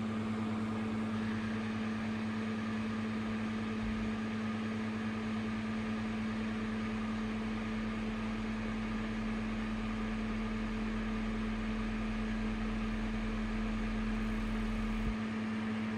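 Steady electrical hum and fan-like hiss from the running amplifier test bench. About four seconds in a deep low hum joins it and holds until about a second before the end, while the AudioControl A1500.1 amplifier drives a test sine wave into its load at about 1.4 ohms, pushed slightly into clipping.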